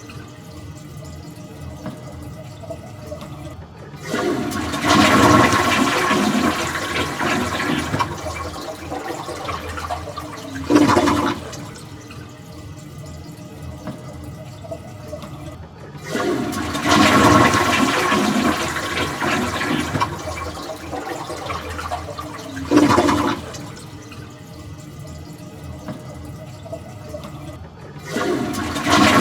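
Toilet flushing over and over, a cycle about every twelve seconds: a short loud burst, a few seconds of quieter running water, then a loud rush of water that lasts several seconds and trails off.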